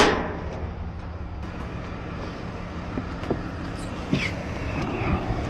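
A single sharp knock, then a few faint taps over the steady low hum of a vehicle running, as a locked car is worked on with lockout tools.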